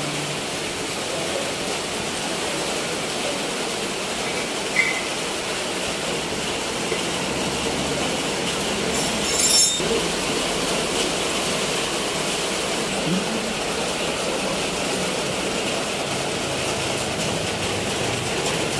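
Heavy tropical rain falling steadily on a shop awning and the street, a dense, even hiss. A brief louder swish about halfway through.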